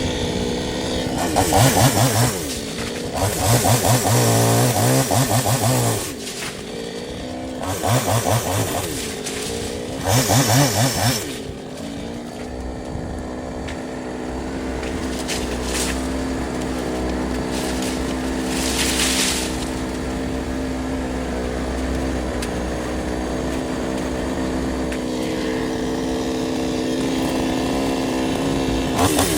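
Chainsaw engine running, revved up in four short bursts over the first dozen seconds, then idling steadily.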